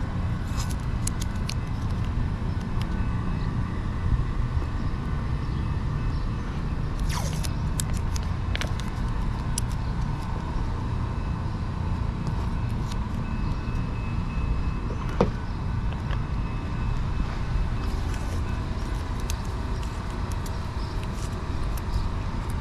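Steady low rumble of outdoor vehicle traffic, with scattered light clicks and taps and one sharper tick about fifteen seconds in.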